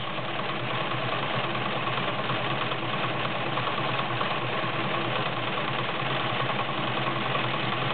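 Vintage Morse zigzag sewing machine running steadily as it sews a stretch stitch in reverse, its motor and needle mechanism going without a break.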